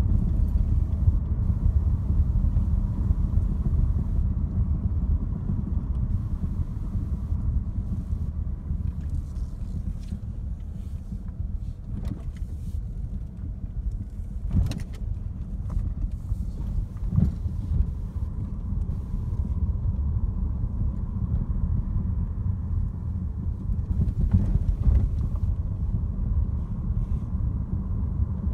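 Steady low rumble of a car's engine and tyres heard from inside the cabin while driving on an asphalt road, with a few brief knocks or rattles.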